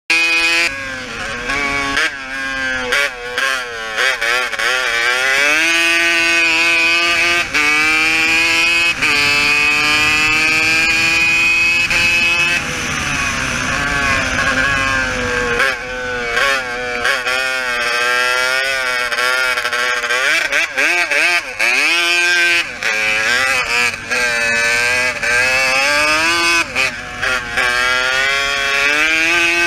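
Race quad's engine on the throttle, its pitch repeatedly climbing and then dropping back, with short dips in the sound every few seconds as the throttle comes off.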